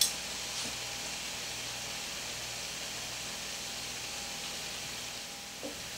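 Skillet of ground beef and vegetables in broth simmering on the stove, a steady hiss, with a single sharp tap right at the start.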